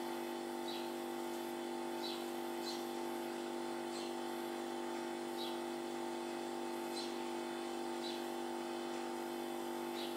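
House sparrows chirping: short, high, falling chirps at uneven spacing, roughly one a second, from a fledgling begging to be fed by the adult male. A steady hum with several fixed pitches runs underneath and is the loudest sound.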